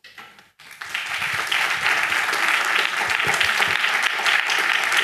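An audience applauding, the clapping starting about a second in.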